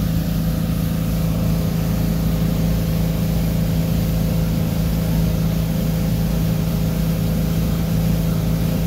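OMC 3.8-litre V6 marine engine with Holley Sniper EFI running steadily at cruising speed, about 3,300 to 3,400 rpm, while the boat is under way. The drone holds one steady pitch throughout, with an even hiss over it.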